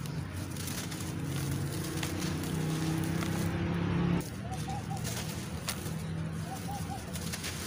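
Wet, softened charcoal-and-chalk lumps squelching and crumbling as hands squeeze them in a basin of water, with faint small crunches. A low steady engine-like hum underlies the first half and cuts off about four seconds in. After it stops, a bird calls in short three-note phrases about every two seconds.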